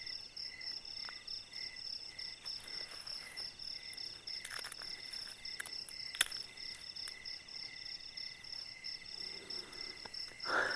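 Night insects, crickets among them, chirping in a steady chorus of high, evenly pulsed trills, several pulses a second. A couple of sharp light clicks come about halfway through.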